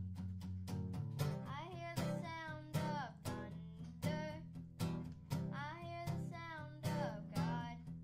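Acoustic guitar strummed in a steady rhythm while a young boy sings a melody over it.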